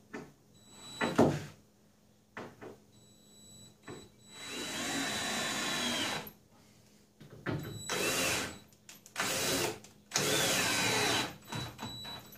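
Cordless drill driving screws into a plywood wall panel in four runs: one of about two seconds, then three shorter ones, the motor's pitch wavering under load. A sharp knock about a second in.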